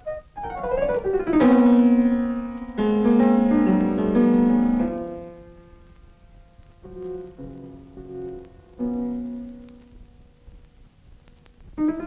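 Piano music: a quick rising run of notes leads into loud, ringing chords, then gives way to a few softer, sparser notes.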